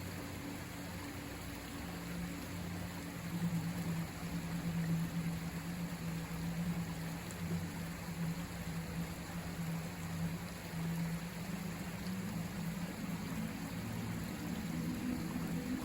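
River water flowing, a steady rushing, with a low steady hum underneath.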